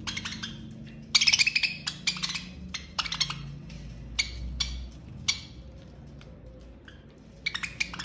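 Budgerigars pecking at crumbly food in a small plastic cup, their beaks tapping and clicking on the plastic in quick bursts of several taps, with short pauses between bursts.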